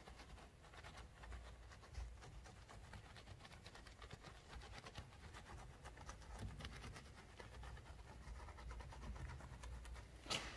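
Faint, rapid scratching of a soft detailing brush scrubbing a soapy honeycomb car grille, with a sharp click near the end.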